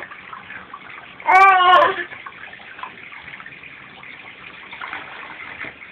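One short, high-pitched voiced fake cough, about half a second long, over a steady hiss of running water.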